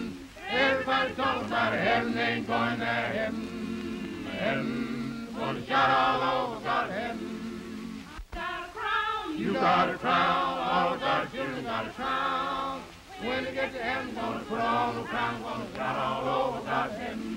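Church congregation of men and women singing together in chorus as they walk, in long phrases with short pauses between. Underneath is an old film soundtrack's steady low hum, with one sharp click about eight seconds in.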